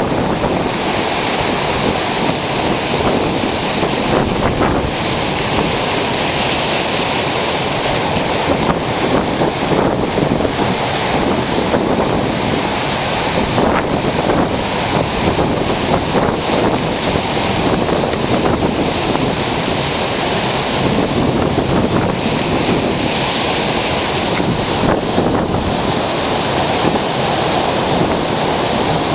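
Ocean surf breaking and washing up a beach: a loud, continuous wash of noise that swells and eases slightly as the waves come in.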